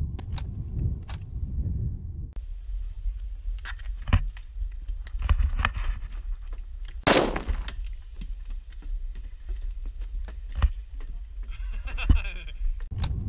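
Scattered sharp clicks and knocks, with one loud rifle-like shot about seven seconds in that rings on afterwards.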